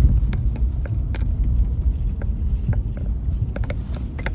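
Car driving on a snowy road, heard from inside the cabin: a steady low road-and-engine rumble with scattered short clicks and ticks.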